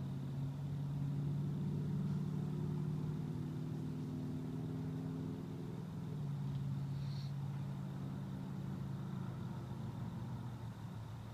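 A motor vehicle engine running, a steady low hum that shifts down in pitch about six seconds in and fades away near the end.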